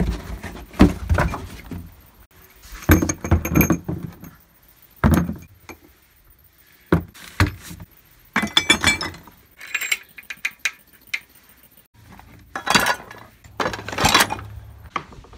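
Used engine parts, pistons on connecting rods among other metal pieces, clinking and clattering against each other as they are moved around in a cardboard box. The rattling comes in about five separate bursts with short pauses between.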